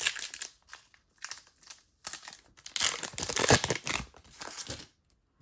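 Crinkling of a foil trading-card pack wrapper being handled, in irregular spells, loudest from about two seconds in to nearly five seconds in.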